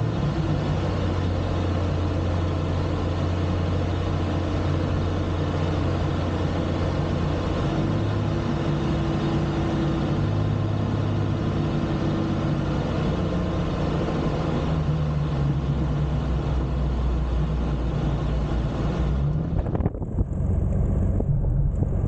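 Rocket kit plane's piston engine and propeller heard from inside the cockpit with rushing wind, through the approach and landing roll. The engine's pitch shifts down and up a few times as power is changed. Near the end the rushing noise drops away and the engine sound changes.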